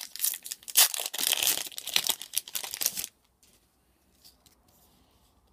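Foil wrapper of a Magic: The Gathering booster pack crinkling and tearing as it is ripped open, a dense crackle that stops about three seconds in.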